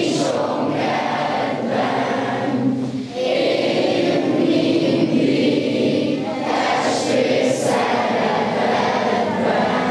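A children's choir singing together, with a brief break between phrases about three seconds in.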